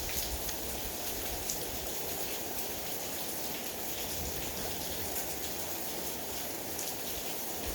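Steady rain falling, a continuous even hiss with a few fainter drop ticks.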